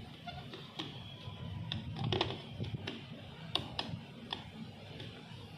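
Sharp plastic clicks, about seven spread irregularly, as a car's fog lamp unit is handled and worked free of its clips behind the bumper, over background music.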